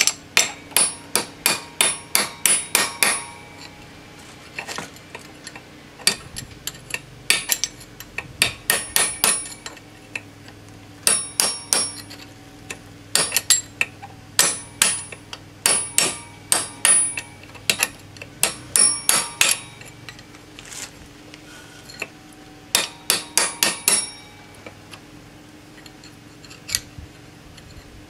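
Hammer striking a screwdriver held against a universal-joint bearing cap on a driveshaft, driving the bearing cup out of the yoke. The sharp metallic blows come in quick runs of several a second, with short pauses between runs.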